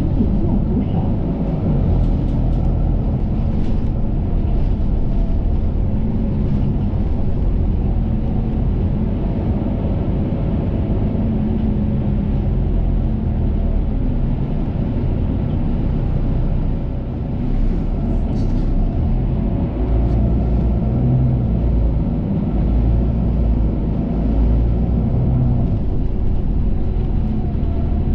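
Steady low rumble of a moving bus's engine and road noise, heard from inside the passenger cabin, swelling and easing slightly with the traffic.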